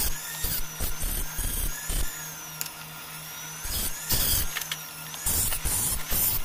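Flex-shaft rotary tool running with a steady hum, its bit grinding a small metal part in short scratchy spells, the strongest about four seconds in and again near the end.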